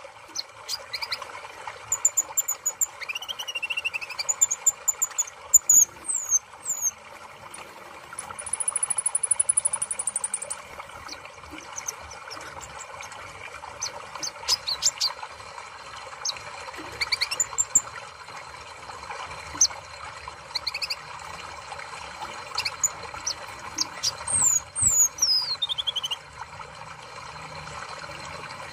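Van Hasselt's sunbird (kolibri ninja) calling: scattered very high, thin chirps and quick falling notes, with one long high whistle held for about two seconds a third of the way in and a run of descending notes near the end, over steady background noise.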